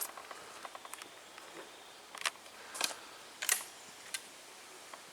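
A handful of short, sharp mechanical clicks and clacks spaced about half a second apart, from the 10-gauge shotgun being handled between shots, typical of opening and reloading it.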